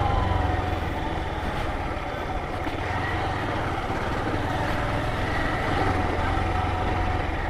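Motorcycle engine running steadily under heavy wind noise, with a faint whine that sinks slightly in pitch near the start.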